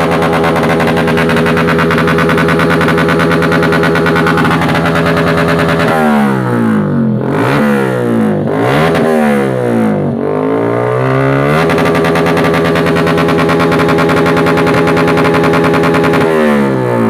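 Motorcycle engine running through a big elbow exhaust pipe, held at steady revs. About six seconds in it is revved up and down several times in quick succession, then settles back to a steady run, with one more quick rev near the end.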